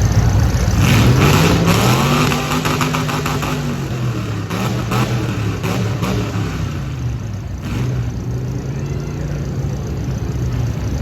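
Demolition derby car engines running on the track, revved a couple of times so the pitch rises and falls, with short crackles over the steady engine sound.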